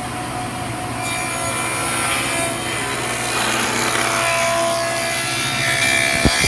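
Table saw running with a dado stack blade: a steady motor hum, joined from about a second in by the louder noise of the dado cutters cutting a groove along a strip of hardwood.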